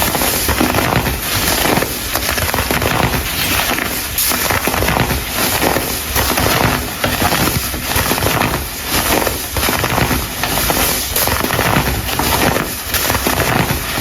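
Dried baking soda chunks being crushed and crumbled, giving a steady run of crisp crackling and crunching.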